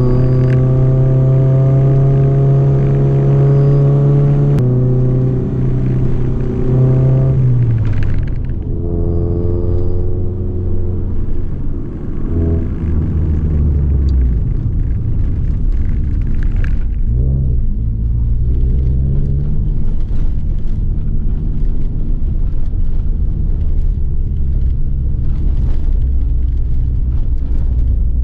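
Honda Civic Nouva's four-cylinder engine heard from inside the cabin, pulling hard in second gear with a steady, slowly rising note, then easing off about five seconds in. It runs lower and rougher through the middle in third gear, and the note starts rising again at the very end after a shift back to second.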